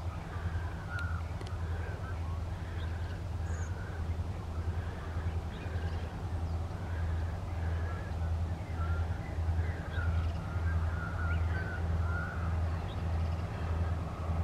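Tasrail diesel locomotives 2054 and 2051 working an empty coal train, heard from a distance as a low, evenly pulsing engine drone. Birds call over it throughout.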